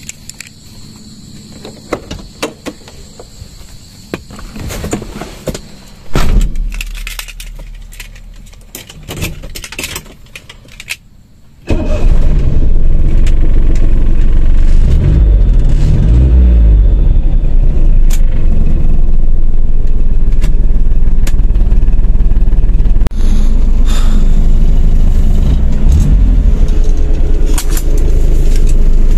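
Scattered light clicks and rattles, with one heavier thump about six seconds in. About twelve seconds in, the 1987 Daihatsu Charade's engine sets in suddenly, loud and steady, and its pitch rises and falls briefly a few seconds later.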